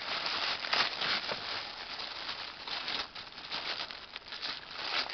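Tissue paper rustling and crinkling as a wrapped gift is unwrapped by hand, with many short crackles throughout.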